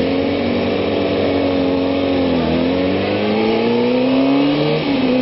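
Kawasaki ZX-6R's inline-four engine pulling out on track. Its pitch sags about two seconds in, climbs again, then drops sharply at an upshift near the end, with a steady rush of wind.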